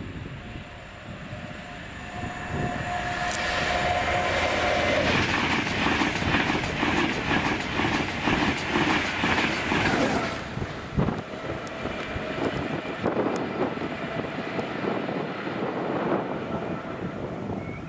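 InterCity 225 express of Mark 4 coaches approaching and passing close by at high speed. The rush of wheel and air noise builds, a steady tone drops in pitch as the front goes by, then a fast run of wheel clatter over the rails. About ten seconds in it gives way abruptly to the quieter rumble of another train approaching from a distance.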